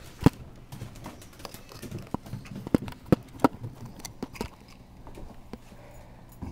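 Dry dog kibble being handled for feeding: scattered, irregular sharp clicks and rattles of the hard pieces, the loudest just after the start and a cluster in the middle.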